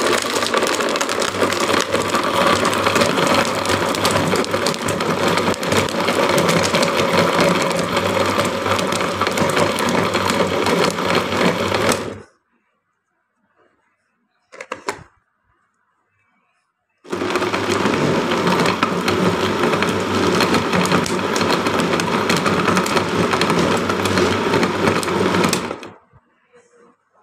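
Electric blender motor running under load as it blends milk, ice, sapodilla and dates. It runs steadily for about twelve seconds and stops. After about five seconds of near silence with one brief click, it starts again, runs for about nine seconds and stops near the end.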